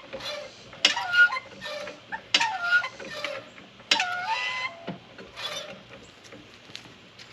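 An animal calling: three drawn-out cries about a second and a half apart, each bending down and back up in pitch, with small clicks and knocks between them.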